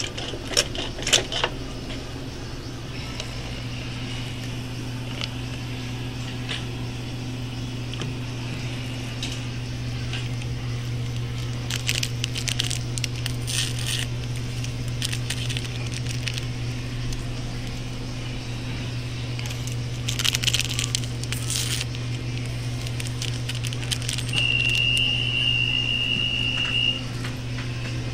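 A flavor syrup pump dispenser at a coffee station is pressed down in a few quick clicks over a steady low equipment hum. Later come scattered clicks and rustling, and near the end a single high steady tone that lasts about two and a half seconds.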